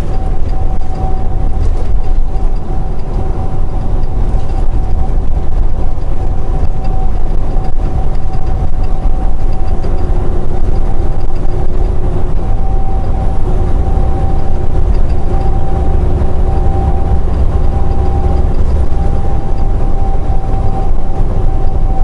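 Semi-truck cab interior at highway speed: steady diesel engine drone and road rumble, with a steady whine above it.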